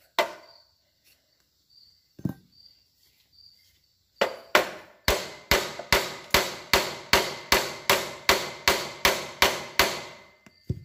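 Hammer blows on the steel frame of an old motorcycle: a couple of single knocks, then about four seconds in a steady run of some seventeen strikes, about three a second, each ringing briefly, as a stuck rear part is knocked at.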